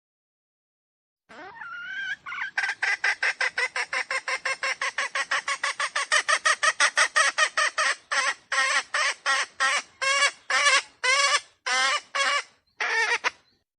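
Red junglefowl calling: after a couple of rising opening notes, a fast even run of clucking notes, about six a second, which slows to spaced notes in the second half and stops abruptly.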